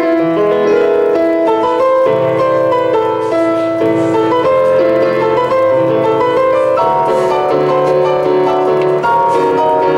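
Electronic keyboard played with both hands in a piano voice: a flowing melody over held lower notes, several notes sounding at once.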